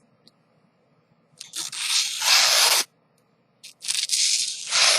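Sharp folding-knife blade slicing through a sticky note: two cutting strokes, each a papery rasp about a second long.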